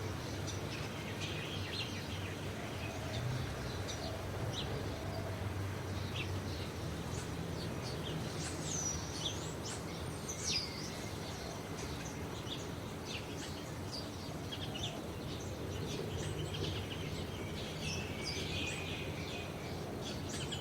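Rural outdoor ambience: many small birds chirping and calling, with a couple of longer sweeping calls about halfway through, over a steady low background rumble.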